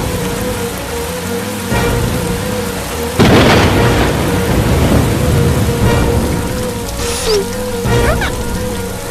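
Cartoon sound effects of heavy rushing water like a downpour, over a held musical tone. A loud crash comes about three seconds in and lasts a couple of seconds. A few short sliding whistle-like effects follow near the end.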